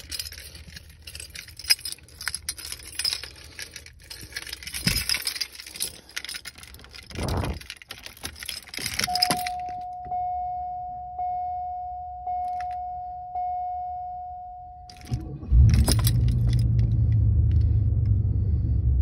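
Keys jangling on a key ring at the ignition of a 1994 Cadillac Sedan DeVille. About nine seconds in, a warning chime rings a single tone about once a second. Near fifteen seconds the 4.9-litre V8 starts and settles into a steady idle.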